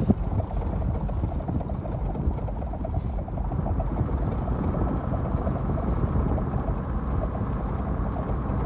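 Steady low rumble of a safari vehicle driving over rough grassland, engine and tyre noise heard from on board.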